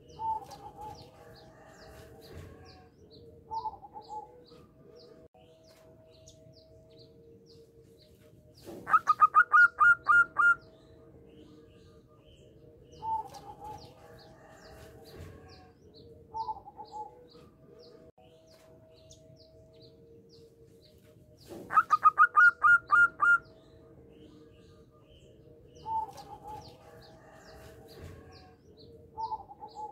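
Zebra dove cooing in two loud runs of rapid staccato notes, each about a second and a half long and about thirteen seconds apart. Softer short calls come in between, and faint high chirping runs throughout.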